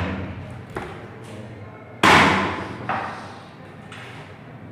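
Knife chopping raw chicken: three heavy chops, the loudest about two seconds in, each dying away quickly.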